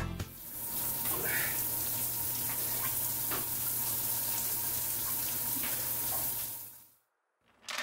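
Handheld shower head spraying water steadily into a tiled shower stall, fading out near the end.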